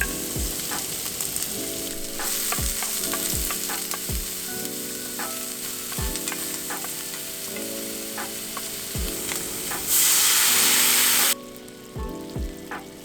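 Food sizzling in hot olive oil in a pan, a steady frying hiss with scattered pops and clicks. Near the end the sizzle swells loud for about a second, then stops abruptly.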